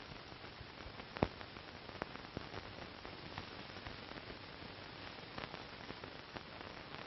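Steady hiss of an old film soundtrack with scattered clicks and crackles, one louder click about a second in.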